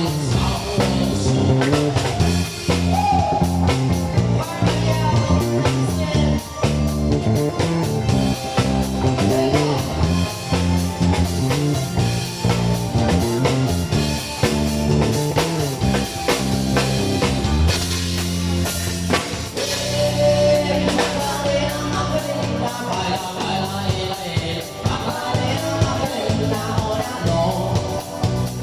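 A band playing rock-style pop with a drum kit and guitar, at a steady beat.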